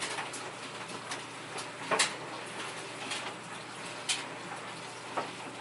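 A few short clicks and knocks, the loudest about two seconds in, over a steady background hiss.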